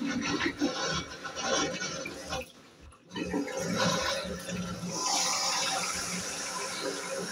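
Water rushing steadily in a bathroom, after a short drop to near quiet about three seconds in.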